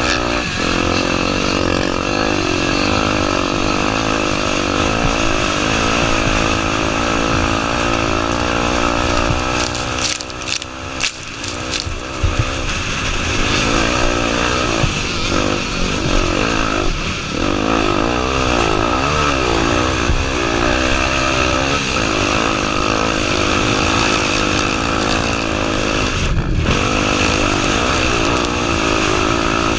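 Honda Tornado 250's single-cylinder four-stroke engine revving up and down continually as the motorcycle is ridden off-road. About ten seconds in, the throttle closes briefly and a few sharp knocks are heard before the engine pulls again.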